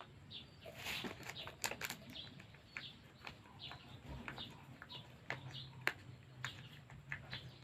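Small birds chirping faintly in the background, short high chirps repeated every fraction of a second, with a few sharp clicks and rustles of handling.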